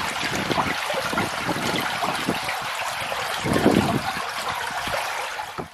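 Rainwater runoff trickling and streaming in a steady flow of shallow water, with a few low thuds. The sound cuts off abruptly at the end.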